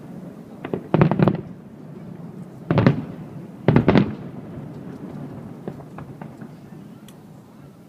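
Fireworks display, aerial shells bursting: a cluster of bangs about a second in, another near three seconds, and a double bang around four seconds. After that, only a few faint pops.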